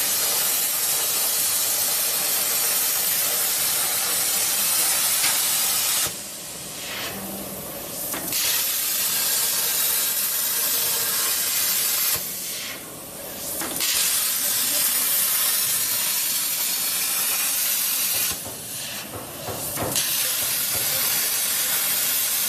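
CNC plasma cutter's torch cutting holes in steel plate: a loud, steady hiss that drops away three times for a second or two, between one hole and the next, then starts again.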